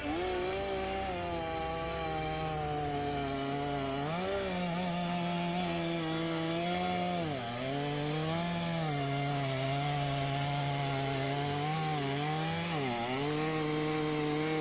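Chainsaw running at high revs while cutting wood; its pitch dips and recovers several times as the chain bites and the engine loads down.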